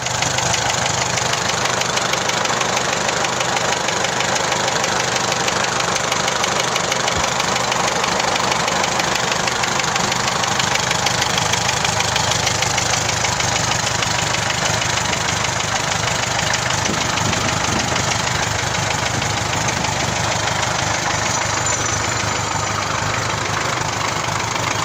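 MTZ-82 tractor's four-cylinder diesel engine running steadily, with a fast, even clatter.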